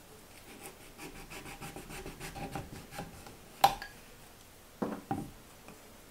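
Small kitchen knife scraping and shaving the tough skin off a horseradish root on a wooden cutting board: a run of quick rasping strokes, then a sharp tap a little past halfway and a couple of softer knocks near the end.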